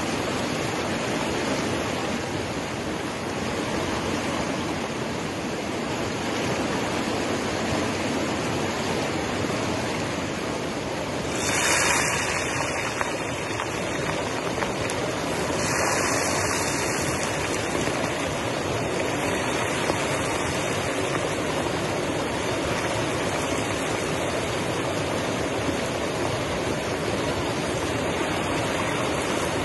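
River rapids rushing steadily over rocks. Two short swells of louder hiss come about twelve and sixteen seconds in.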